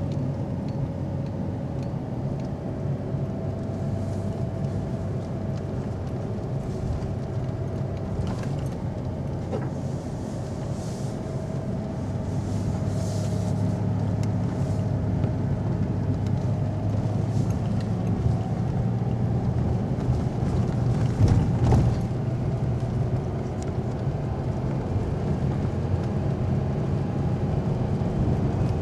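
Engine and road noise heard from inside the cabin of a vehicle in motion: a steady low hum with a faint wavering whine above it. A brief thump comes about three-quarters of the way through.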